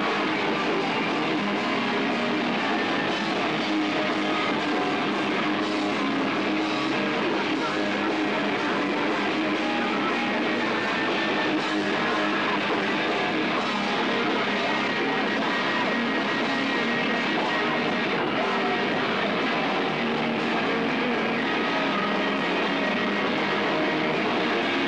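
A live rock band playing loud and steady through amplifiers, electric guitars to the fore, with no break in the music.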